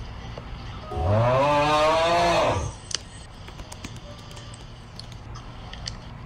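A person's long, drawn-out wordless vocal sound, starting about a second in and lasting under two seconds, rising in pitch and then holding. Scattered keyboard clicks follow as a chat message is typed.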